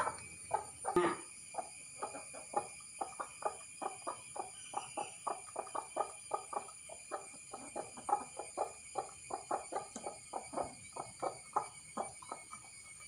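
Hen clucking in a long run of short notes, about three or four a second, with one louder call about a second in.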